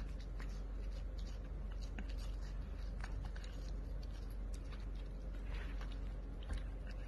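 A dog chewing food: scattered faint clicks and smacks over a steady low hum.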